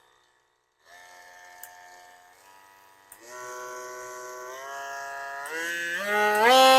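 Yunirvana oscillating multi-tool running unloaded, its motor whine starting about a second in and stepping up in pitch and loudness several times as it is switched through its speed settings.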